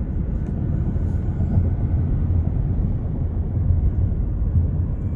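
Union Pacific freight train rolling past, a steady low rumble of the cars on the rails.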